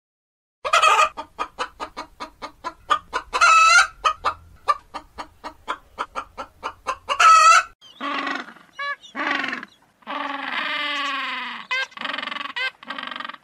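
A flock of hens clucking in a quick run of short clucks, with two louder drawn-out calls among them. After about eight seconds the sound gives way to African penguins calling, including one long braying call.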